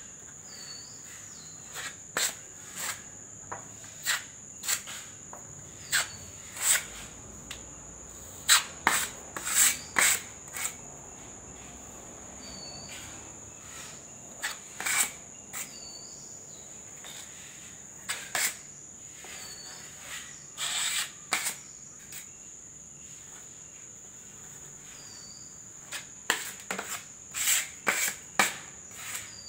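Short scraping strokes of a flat plastic spreader working putty into the gap between a wooden door frame and a plastered wall, coming in irregular clusters with pauses between. A steady high-pitched whine runs behind them.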